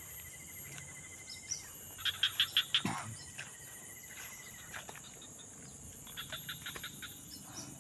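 Wetland animal chorus: insects buzz steadily and high, with a fine trill running under them. About two seconds in, an animal gives a loud series of about six quick pulsed calls, and a shorter, softer series follows near the end.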